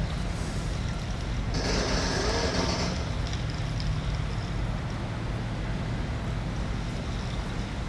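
Road traffic running past, a steady rumble of engines and tyres. A louder vehicle goes by from about one and a half to three seconds in.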